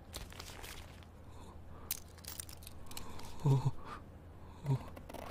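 Clothing rustling and a trouser belt being handled and undone, with a few small sharp clicks in the first couple of seconds. Two short low murmured voice sounds come about three and a half and four and three-quarter seconds in.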